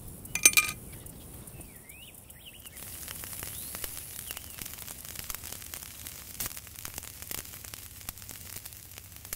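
Glowing charcoal embers crackling and hissing, with scattered small pops. About half a second in there is one short, loud ringing clink, and a few faint bird chirps are heard shortly after.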